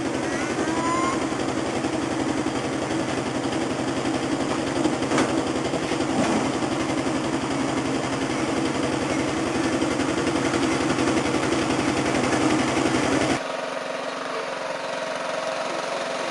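Riding lawn mower engine running steadily with an even pulsing beat. About three seconds before the end it breaks off abruptly, leaving a quieter hum.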